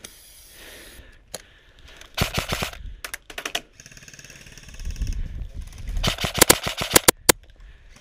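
Krytac SPR MK2 airsoft electric rifle firing in short runs of rapid shots: a burst about two seconds in, a few more near three and a half seconds, and a longer string of about eight quick shots around six to seven seconds in.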